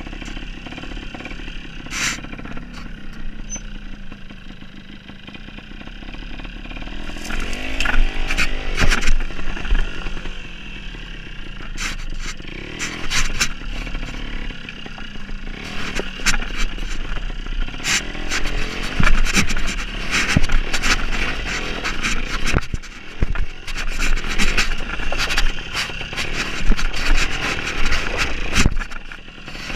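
Trials motorcycle engine running low with repeated throttle blips as the bike crawls over loose round boulders, the revs rising about 8 seconds in and again a little past halfway. Frequent sharp knocks and clatters of tyres and chassis on the rocks run through it.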